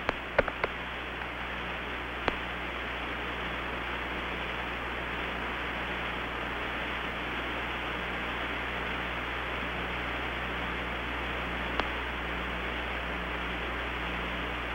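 Steady hiss of an open air-to-ground radio channel with no one talking, cut off above the upper mid-range, over a low hum. A few sharp clicks sound within the first couple of seconds and once more near the end.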